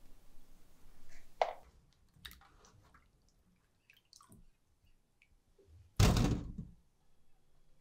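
Kitchen handling sounds: a knock, scattered light clicks and taps, then one louder short rustling clatter about six seconds in.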